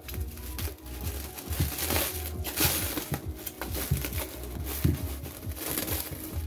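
Clear plastic stretch wrap rustling and crackling in irregular bursts as hands pull and tear it off a boxed speaker.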